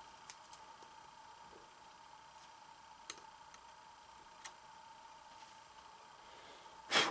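A few faint clicks and ticks of a hand handling an AR-15 barrel clamped in a bench vise, over a steady faint high tone, with a short louder rush of noise near the end.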